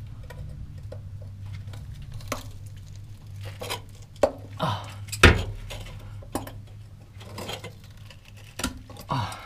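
Hand tools clinking, knocking and scraping against the metal exhaust hanger and underbody while the old exhaust hanger is worked off, a scattered series of sharp metal clanks with the loudest knock about halfway through. A steady low hum runs underneath.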